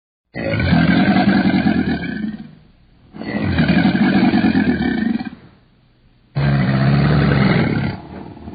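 Three long, loud animal calls, each lasting about two seconds, with short pauses between them.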